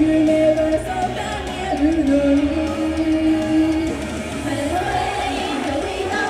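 Live J-pop-style idol song: female vocals singing long held notes over a band or backing track with a steady bass.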